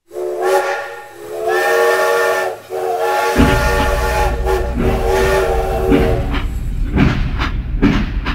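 Steam locomotive whistle blowing four times, a multi-note chord. About three seconds in, a rhythmic chugging starts underneath and carries on after the whistle stops.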